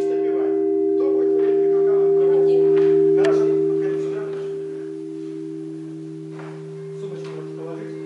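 A large bell ringing on after a strike: a low steady hum with a few higher tones above it. It swells about three seconds in, then fades, with a few faint knocks over it.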